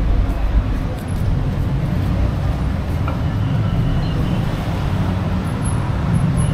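Road traffic: a steady low rumble of passing vehicles.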